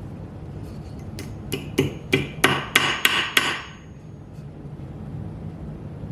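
Hammer striking steel tie wire on the corner of an anvil: about eight quick blows, each with a short metallic ring, between about one and three and a half seconds in. The blows start the bend that forms the wire into a staple.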